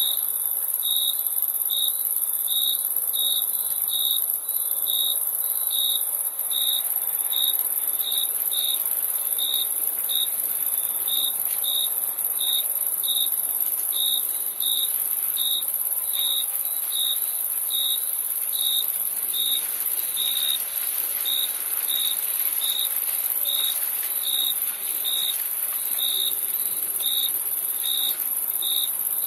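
Crickets chirping: a clear, regular chirp a little under two times a second, over a steady, very high-pitched insect trill.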